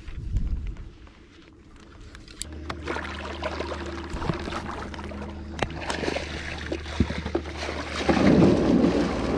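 Small fishing boat on the water. A steady low hum starts about two and a half seconds in, with scattered sharp knocks throughout and a louder rush near the end.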